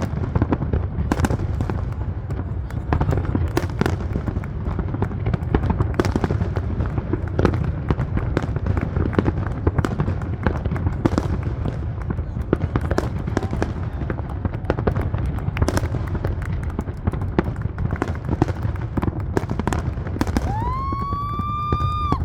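Fireworks display: a dense, continuous run of bangs and crackling pops over a low rumble. Near the end a high whistle rises and holds for about a second and a half.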